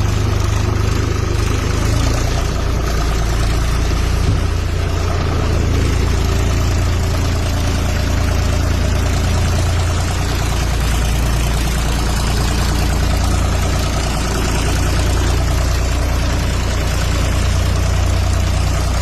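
A vehicle engine idling with a steady low hum, with an even hiss layered over it.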